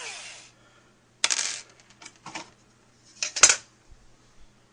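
Intro sound effect: a buzzing tone fades out, then comes a series of sharp, clattering clicks like small hard objects knocking together. The loudest clatter is about three and a half seconds in.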